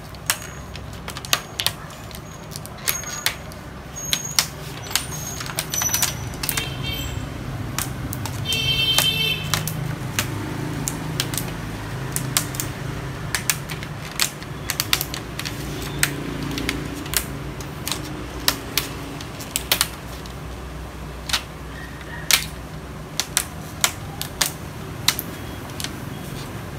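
Thin plastic reflector sheet of an LED TV backlight clicking and crackling irregularly as hands press it down around the LED lenses, over a steady low hum.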